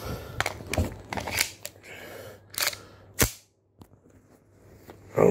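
Clicks and clacks of an airsoft pistol and its magazine being handled and put together, a handful of knocks in the first second and a half, then one sharp, loud click a little over three seconds in.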